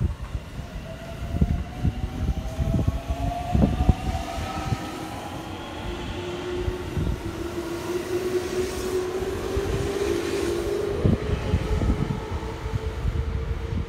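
JR Central 313 series and 211 series electric train pulling out of a station and accelerating past. Its traction motors whine in several tones that rise slowly in pitch, over a low rumble and scattered knocks from the wheels on the track.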